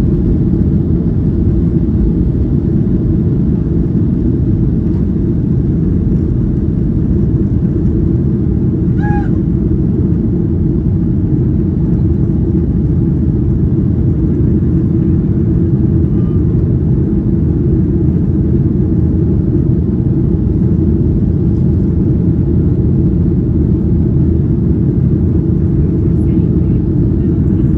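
Boeing 737-800's CFM56-7B engines at takeoff thrust, heard inside the cabin over the wing: a loud, steady low roar through the end of the takeoff roll, liftoff and initial climb.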